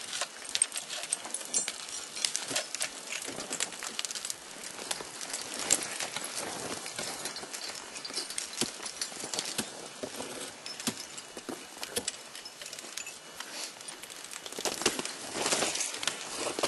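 Ice-climbing gear on a wall of ice: irregular clinks, knocks and scrapes of metal hardware and chipped ice, with a longer rasping stretch near the end.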